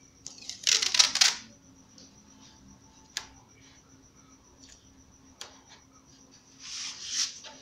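Adhesive tape being pulled off its roll in two rough bursts, the louder about a second in and another near the end, with a couple of short sharp clicks between them as it is handled on a motorcycle's plastic front fender.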